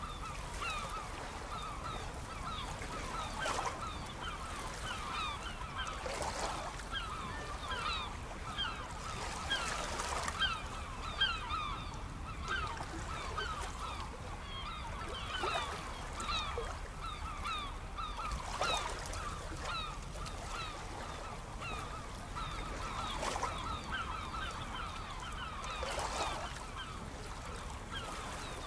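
A flock of birds calling over one another without pause, short calls overlapping. Beneath them, sea waves wash in now and then every few seconds.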